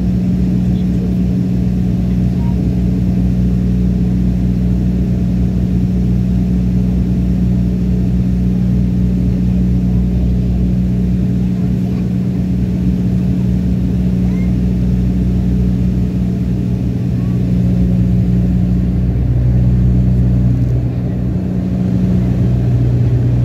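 Turboprop engine and propeller drone heard inside the airliner cabin: a loud, steady low hum with strong fixed tones. The tones waver and the level swells slightly for a few seconds near the end.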